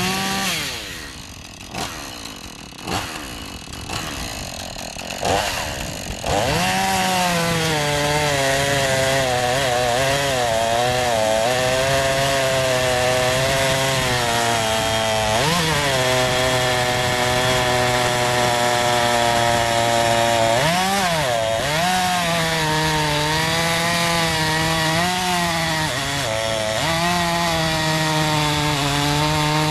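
Husqvarna 440e two-stroke chainsaw idling with a few short throttle blips. About six seconds in it goes to full throttle and cuts down through a large log, the engine holding a steady high pitch under load, with its revs briefly rising and falling twice mid-cut.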